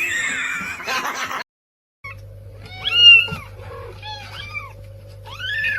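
A domestic cat meowing several times, each call rising and then falling in pitch, the loudest about three seconds in, over a steady low hum.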